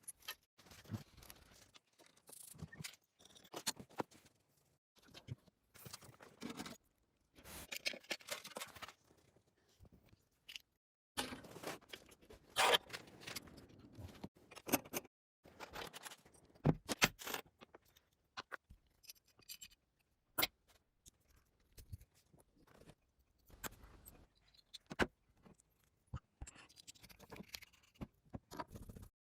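Irregular clinks, taps and short scrapes of hand tools and metal parts being handled, with brief pauses between.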